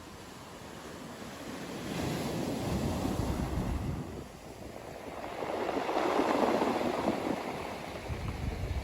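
Ocean waves washing onto a beach, in two slow surges: a smaller one a couple of seconds in, then a louder one about two-thirds of the way through that falls away.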